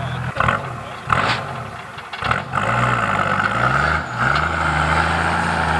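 Off-road prototype 4x4's engine working under load in sand, its pitch rising and falling as it is revved, then holding steady at high revs for the last second or so, with a steady whine above it. A few sharp knocks sound in the first couple of seconds.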